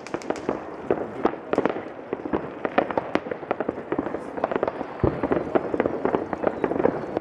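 Many New Year's Eve fireworks and firecrackers going off at once: a dense, irregular string of pops and bangs, with one heavier, deeper bang about five seconds in.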